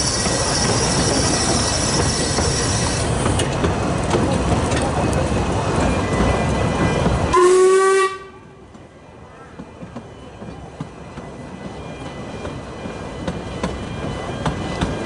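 Narrow-gauge steam train on the move: a steady rumble of the carriage with a high steam hiss that stops about three seconds in. A little past halfway comes a short, loud whistle blast, the loudest sound. After it the sound drops sharply to a quieter rolling of the wheels that slowly grows again.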